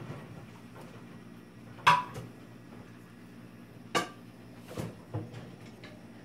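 Two sharp clinks of a white ceramic bowl knocking on a granite countertop, about two seconds apart, each with a brief ring, the first the louder, followed by a few soft knocks.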